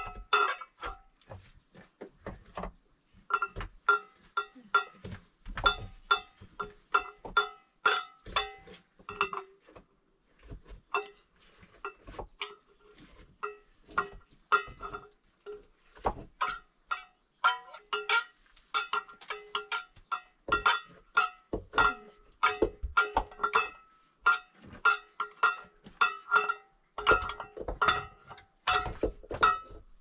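Irregular metallic clinking, several strikes a second, each ringing briefly at the same few pitches.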